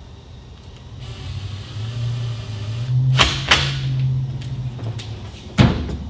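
Cordless driver running as it drives a screw into a P-clip on the aluminium base, a steady motor whir of about four seconds, rising slightly midway, with two sharp clicks. A sharp thump near the end.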